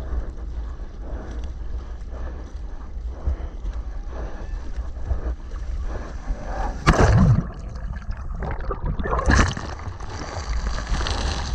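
Ocean water sloshing and lapping close to the microphone, over a low wind rumble. A loud rush of breaking whitewater comes about seven seconds in and another just after nine seconds, then spray keeps splashing over the bodyboard.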